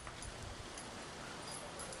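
A dog running on grass, with a few soft low thuds of its footfalls about half a second in, over a steady outdoor background hiss.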